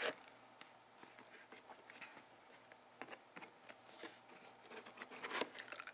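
Long fingernails tapping and scratching on a cardboard box as its flap is pried open: a scatter of soft clicks and scrapes, with a louder scrape near the end.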